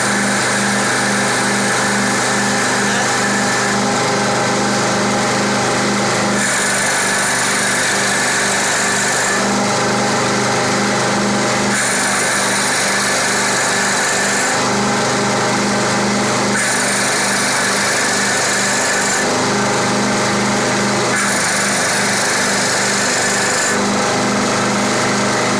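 CNC wood lathe running: a steady motor hum with a pulsing low tone, whose pitch and hiss change every two to three seconds as the machine switches between moves.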